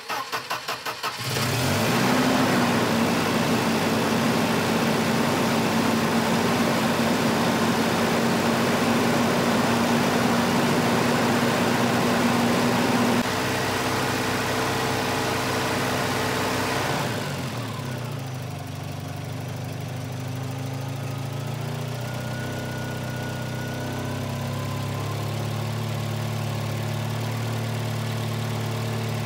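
A Volvo 240's B230F four-cylinder engine cranks briefly and catches, then runs at a steady high idle. About 17 seconds in the engine speed falls, and it settles into a lower, slightly uneven idle. The high idle is the fault being traced to the idle air control valve.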